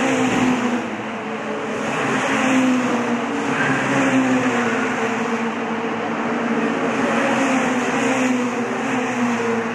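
Several Mitjet race cars passing one after another, their engines running hard at high revs. The pitch slides as each car goes by, and the sound swells about two and a half, four and eight seconds in.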